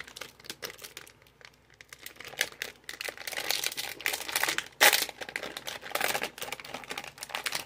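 Plastic packaging crinkling and tearing as a package is opened by hand, in irregular crackles, with one sharper, louder snap about five seconds in.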